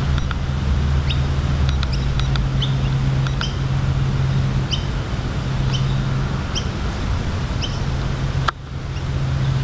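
Small birds chirping again and again in short high notes over a steady low wind rumble on the microphone. A single sharp click comes near the end.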